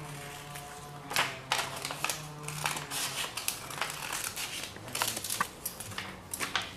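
Scissors cutting through sheets of coloured paper: an irregular series of sharp snips.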